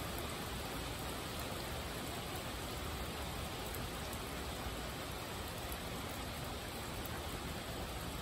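Steady rainfall: an even, unbroken hiss of falling rain.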